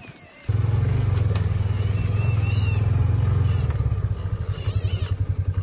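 Side-by-side utility vehicle's engine running while driving. It is a loud, steady low drone that cuts in suddenly about half a second in and dips briefly near the end.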